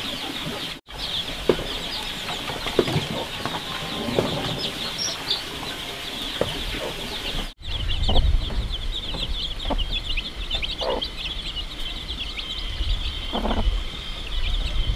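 Domestic hen clucking among her brood of chicks, which peep constantly in a high, twittering chorus; from about halfway through there is a dense run of short, sharp peeps.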